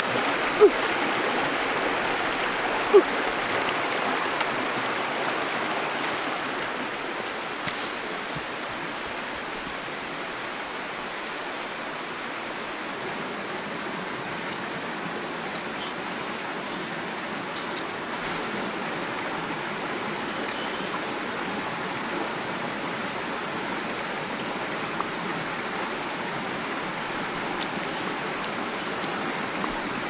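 Steady rush of water over a shallow rocky stream, louder in the first few seconds and then settling. Two sharp knocks come near the start, and from about halfway a faint high pulsing trill runs under the water sound.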